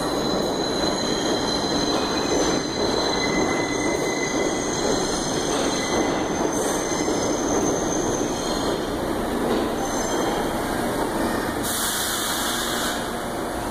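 R142 subway train running into the station on its steel wheels, a steady rumble with high wheel squeal as it slows to a stop. A short hiss comes near the end as it halts.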